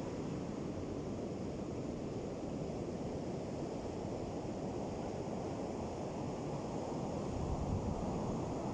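Ocean surf washing steadily: a dense, low rush of waves with no distinct breaks between them. It swells slightly louder near the end.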